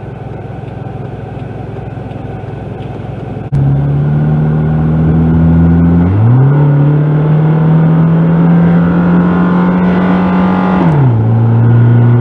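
1999 Toyota Camry engine heard from inside the cabin while driving. A low rumble gives way, about three and a half seconds in, to a sudden loud low drone that rises in pitch around six seconds, holds steady, and falls back near the end. The owner takes the noise for a fault in one of the cylinders.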